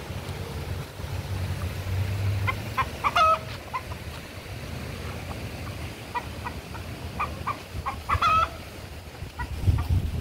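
Free-roaming roosters clucking. Twice, about two and a half and seven seconds in, a quick run of short clucks ends in a longer call that drops in pitch. A low wind rumble on the microphone runs underneath.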